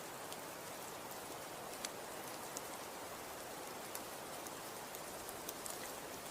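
Snow-and-wind ambience: an even, steady hiss with light ticks scattered through it.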